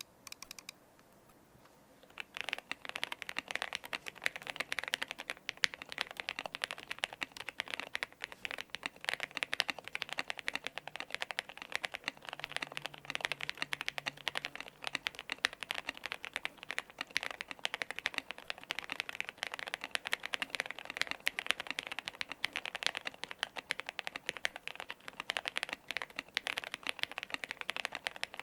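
Zoom65 mechanical keyboard with factory-lubed JWK linear switches and PBT keycaps being typed on: a few keystrokes, a short pause, then fast continuous typing from about two seconds in. The board is foam-dampened and tape-modded, which gives it its thocky sound.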